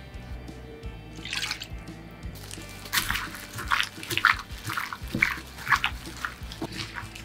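Wet squelching and plastic crinkling as a gloved hand kneads diced raw chicken breast and fried tofu in a soy sauce and sake marinade in a glass bowl, in quick irregular strokes starting about two and a half seconds in, over background music.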